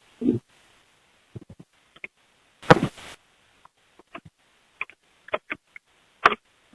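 Random clicks, taps and brief noises over a telephone line, left on a voicemail, with one louder, fuller burst about two and a half seconds in.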